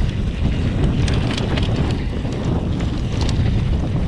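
Wind buffeting the microphone of a mountain bike descending fast, with a few sharp rattles from the bike over rough ground about a second in and again about three seconds in.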